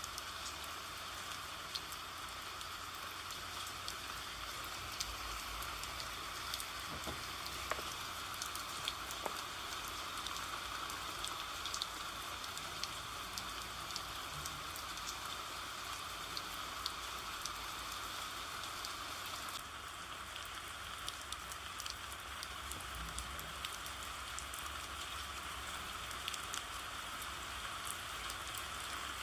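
Steady rain, a constant hiss with many small drops ticking.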